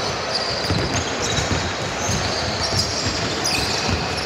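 Basketball being bounced on a court during a game: repeated low thuds of the ball at an uneven pace, with short high squeaks of sneakers.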